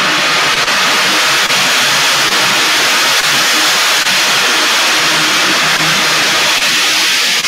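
Large hammered gong played continuously with a soft mallet, building a loud, sustained roar of shimmering overtones that never dies down.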